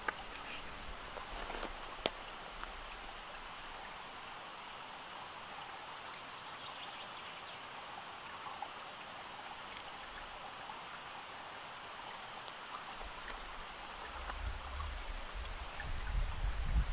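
Steady outdoor background hiss with a faint high steady tone running through it and a couple of light clicks. A low rumble comes in near the end.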